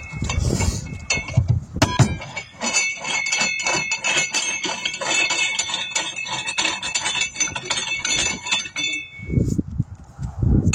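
Rapid metallic clicking and clinking with a ringing tone, metal working against a steel wheel rim on a tire changer, from about two seconds in until about nine seconds in. Low rumbling comes before and after it.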